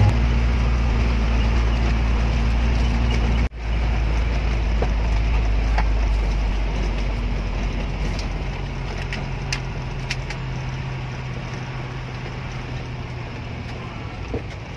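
Vehicle engine and road noise heard from inside the cabin while driving, a steady low hum with a few light rattling clicks. The sound cuts out for an instant about three and a half seconds in, then gradually gets quieter toward the end.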